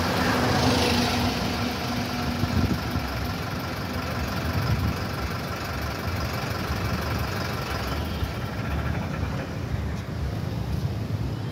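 Road traffic: a queue of motorcycles, cars and a bus with their engines idling and running, a steady low engine noise.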